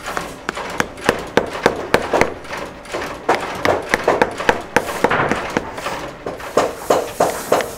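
Shoemaker's hammer driving bottoming nails through a leather midsole into a work boot: quick sharp taps, about three a second, some struck harder than others.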